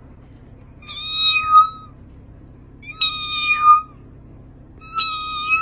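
A domestic cat meowing three times, about two seconds apart, each one a long, drawn-out high call.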